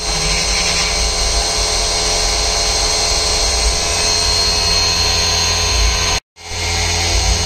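CNC milling-machine spindle running with a small end mill cutting an aluminium workpiece: a steady whine with several held tones over a low hum. The sound breaks off for a moment about six seconds in and resumes.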